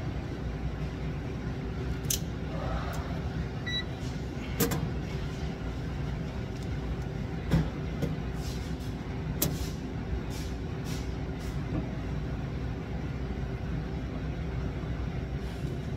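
Steady low machinery hum with a few steady tones in it, broken by a scattering of sharp clicks and knocks.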